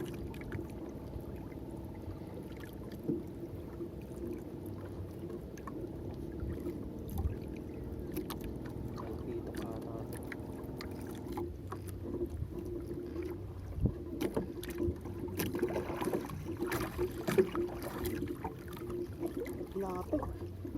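Small fishing boat at sea: a steady low hum with water noise against the hull, then a cluster of knocks and splashing in the last few seconds as a fish is brought up on the handline.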